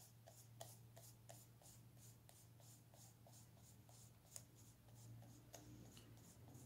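Faint, rhythmic scrubbing of a PanPastel applicator tool rubbing pastel back and forth over a plastic stencil on paper, about three strokes a second, over a low steady hum.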